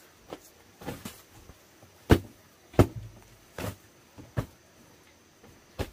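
A series of about seven separate knocks or thuds at irregular intervals, the loudest two a little after two seconds in and just under three seconds in.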